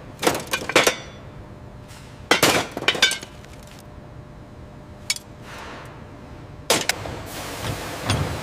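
Irregular metal clanks and knocks of heavy equipment being handled, some in quick succession and others a second or more apart, each ringing briefly. A steady hiss sets in near the end.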